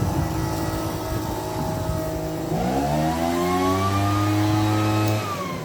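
Microwave oven running with a steady electrical hum. About two and a half seconds in, a louder pitched whine rises and holds, then falls away near the end.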